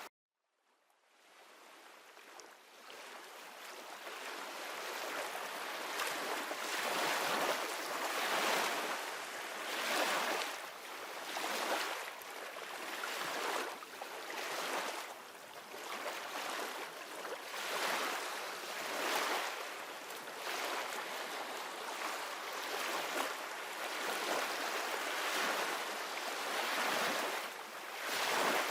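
Ocean waves washing on a shore, fading in from silence over the first few seconds, then swelling and receding about every two seconds.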